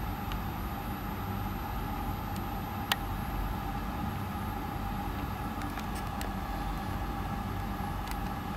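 Steady low rumble with a constant faint hum, engine-like, and one sharp click about three seconds in.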